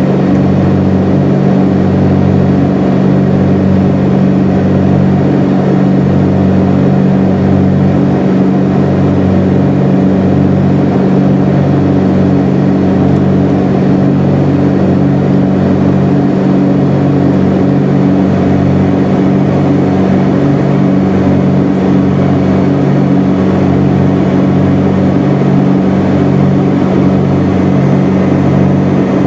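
Twin engines and propellers of a Cessna 421 (geared, turbocharged six-cylinder Continentals) heard from inside the cabin in flight: a loud, steady drone with a slow, regular throb every second or two.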